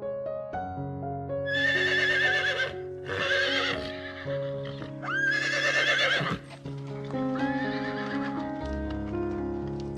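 A horse whinnying four times, each call a wavering neigh of about a second, over background music with sustained notes.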